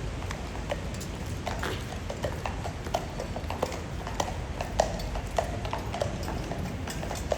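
Horses' hooves clip-clopping on a paved road, several irregular strikes a second, over a steady low rumble.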